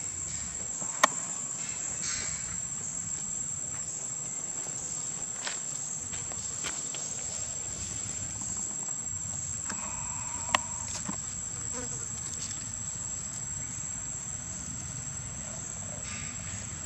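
Steady, high-pitched drone of insects, unbroken throughout, with two sharp clicks, one about a second in and another past the middle.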